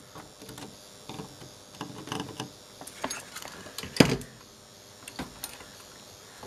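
Soldering iron and solder wire being worked along the pins of a small surface-mount chip on a circuit board: quiet scattered taps and scrapes, with one sharper click about four seconds in.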